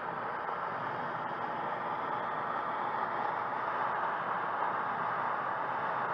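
Steady rush of air streaming over a glider's canopy in flight, heard from inside the cockpit, with no engine; it grows slightly louder toward the end.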